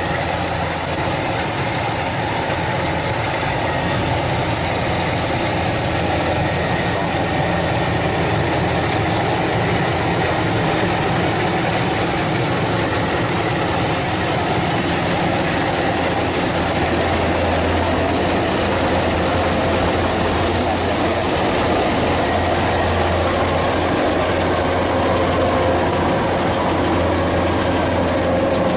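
Kubota DC-105X combine harvester running steadily, a continuous heavy engine and machinery drone that grows slightly louder near the end.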